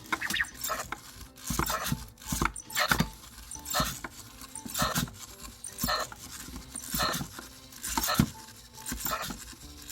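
EMO desktop pet robot stuck in a loop, repeating the same short sound about once a second: the glitch in which it keeps repeating one action and won't stop after being set down from charging.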